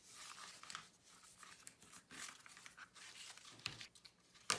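Cardstock being folded and creased along its score lines by hand: faint rustling and crinkling with small clicks, and one sharper snap near the end.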